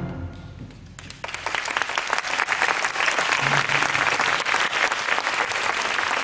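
The last of a school concert band's final chord fades out, and about a second in the audience starts applauding, holding steady after that.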